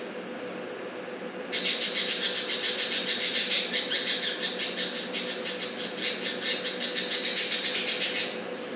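A young budgerigar makes a fast, rasping run of sounds, about eight a second. It starts about a second and a half in and stops shortly before the end, over a steady low hum.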